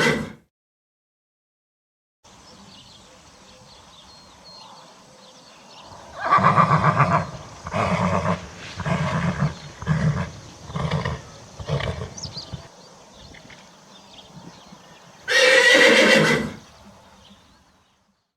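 Horse neighing: a long whinny broken into about seven shaking pulses over several seconds, followed a few seconds later by one short, loud call.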